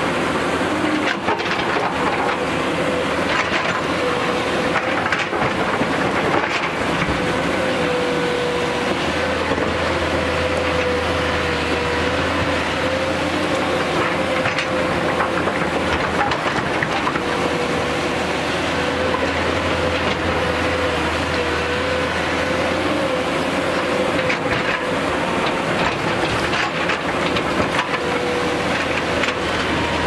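JCB tracked excavator's diesel engine running steadily under load with a wavering whine, while its bucket digs into the rocky slope and loose stones clatter and knock as they tumble.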